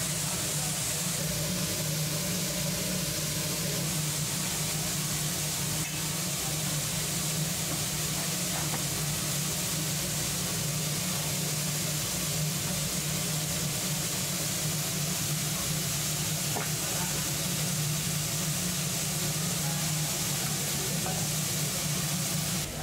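Ramen and rice cakes in spicy red sauce boiling hard in a frying pan over a gas burner: a steady bubbling sizzle and hiss over a constant low hum.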